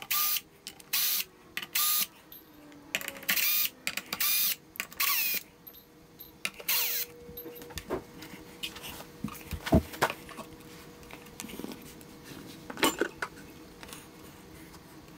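Cordless drill-driver backing out the Phillips screws that hold a 12-inch subwoofer driver in its cabinet, in a string of short bursts over the first six seconds or so. Then scattered clicks and knocks as the driver is worked loose and the cabinet handled, with one sharp knock past the middle the loudest sound.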